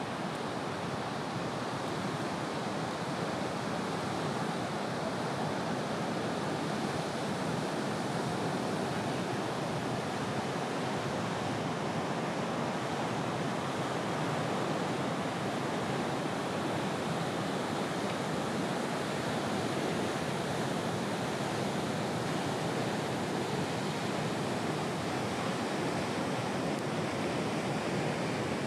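Ocean waves breaking and whitewater washing, a steady, even rush of surf with no single crash standing out.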